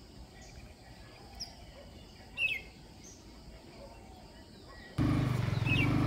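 Faint outdoor background with a few short bird chirps, the clearest a quick falling chirp about halfway through. Near the end a motor vehicle's engine cuts in abruptly, running steadily and much louder.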